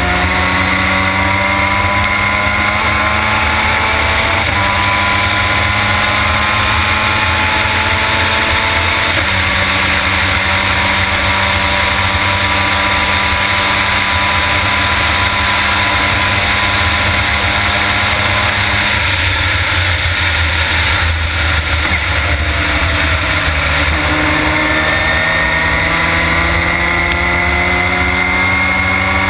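Formula Mazda race car's rotary engine at racing speed, heard from the cockpit: revs climb with upshifts about four and nine seconds in, then hold steady at high revs for about ten seconds. Around twenty seconds in the revs fall away, then climb again through quick upshifts near the end.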